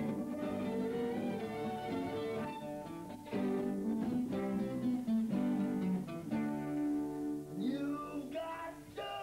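Acoustic band music led by a strummed acoustic guitar over a bass line, with a held melody that slides in pitch near the end.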